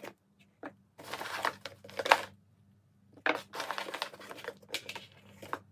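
Crinkling and rustling of packaging as hands rummage in a cardboard box and pull out a bundle of thin cable, in two spells, with a sharp clack about two seconds in.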